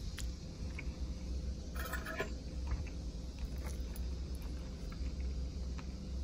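A metal fork scooping rice on a black plastic plate, with faint clicks and a short scrape about two seconds in, over a steady low rumble.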